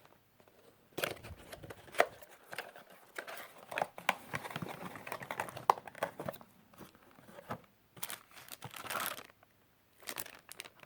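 Packaging being handled and opened: irregular crinkling, rustling and tearing with scattered clicks and knocks, pausing briefly near the end.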